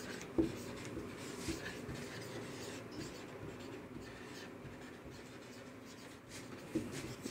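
Marker pen writing on a whiteboard: faint strokes across the board with a few light taps of the pen tip.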